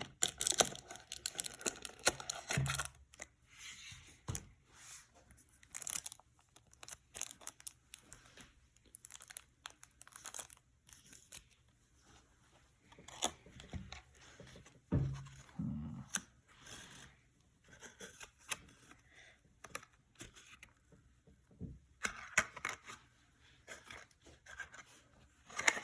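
Card packaging being torn and crinkled open by hand in irregular crackling bursts, busiest in the first few seconds, with a few soft thuds of handling.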